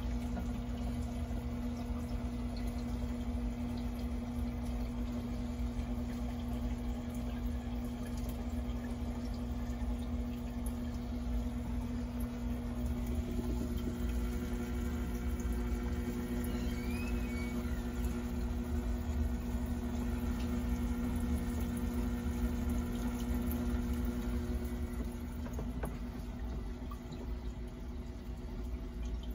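Water trickling and splashing into an aquarium sump, over a steady low hum from the pumps.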